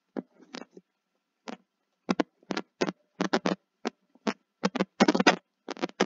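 Stylus tapping and scratching on a tablet screen while handwriting, in many short irregular strokes with brief gaps between them.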